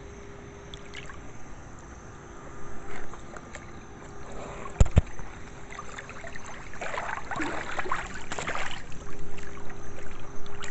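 Water splashing and trickling, getting louder in the second half, over a steady low hum. A single sharp knock about five seconds in.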